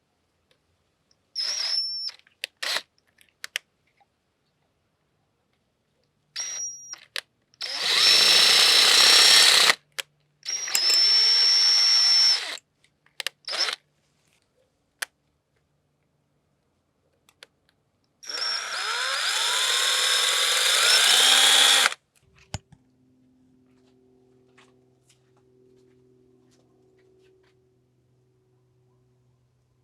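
Power drill boring out a broken bolt's hole in a two-stroke outboard engine, run in several short bursts and then one longer run of about four seconds whose pitch climbs near the end.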